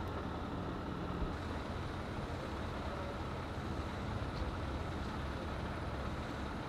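Steady low rumble of motor vehicle engines, from vehicles idling or passing on the street.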